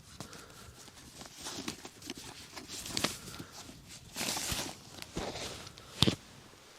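Camping gear being packed away by hand: irregular rustling and scraping, with a sharp click about six seconds in.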